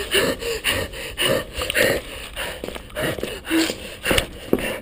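A person breathing hard in quick, gasping breaths, with knocks and rustling from a handheld camera being jostled.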